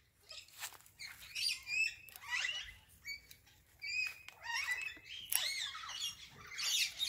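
Macaw chattering softly in a string of short squeaky chirps that rise and fall in pitch, with brief pauses between them.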